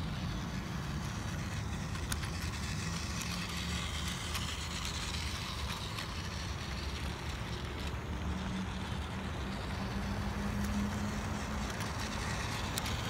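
Steady street traffic rumble with a battery-powered Plarail toy train running on plastic track, a faint motor whir and a few light clicks; an engine hum rises for a few seconds past the middle.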